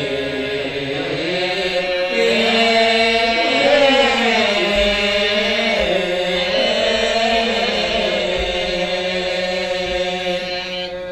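A man's solo voice chanting a verse of a Malay hikayat into a microphone, in a slow melody of long held notes that glide and waver in pitch, without a break until it stops just at the end.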